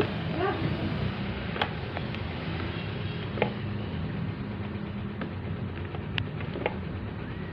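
Electric fan that won't start: a steady low hum, with a few sharp clicks scattered through.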